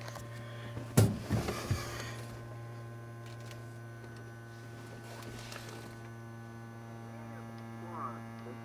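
Steady hum from the 1951 Studebaker's tube car radio, switched on and being tuned before a station comes in, with a sharp click about a second in and brief snatches of a voice.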